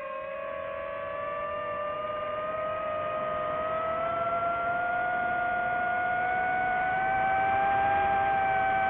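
DJI FPV drone's motors and propellers whining steadily, the pitch slowly climbing and the sound growing louder as the throttle comes up.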